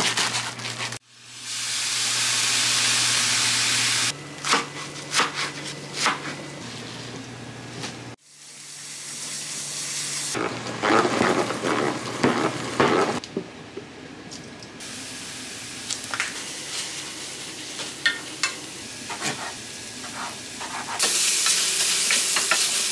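Kitchen food-prep sounds across several cuts: clicks and knocks of handling and cutting food on a wooden board, a salad spinner being worked with a dense rattle, and hissing. Near the end, chicken and mushrooms sizzle loudly in a frying pan as they are stirred with a wooden spatula.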